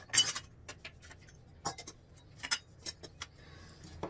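Small brass and copper puja vessels being set down on a metal plate and wooden table: a string of light metallic clinks and knocks, the loudest right at the start, then a dozen or so scattered taps.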